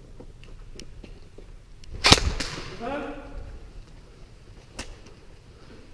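A sharp, loud crack about two seconds in, ringing off concrete walls, with a smaller crack just after it, then a brief voice. Faint clicks and steps come before and after.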